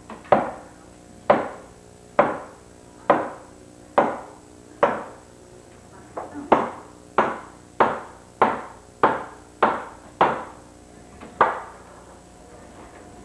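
Hammer blows, about fourteen sharp strikes at a steady pace of roughly one a second, getting quicker midway, then stopping near the end.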